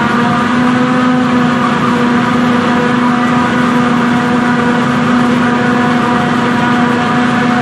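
John Deere self-propelled forage harvester cutting and chopping standing maize through a Kemper corn header: a loud, steady drone of engine and cutting gear with a constant hum, unchanging throughout.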